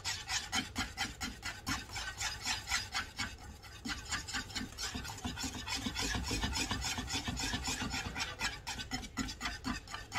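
Wire whisk beating a thick yellow custard against the bottom and sides of a nonstick pan, a quick steady scraping at about four strokes a second.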